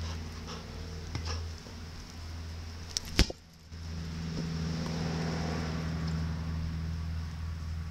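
Two sharp knocks close together about three seconds in, the second the loudest: the hard plastic Jolly Ball being kicked up into the air. A steady low hum runs underneath.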